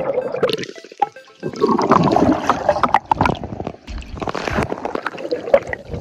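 Water bubbling and sloshing as freedivers move underwater, in two loud spells, the first starting about a second and a half in, with background music faintly under it.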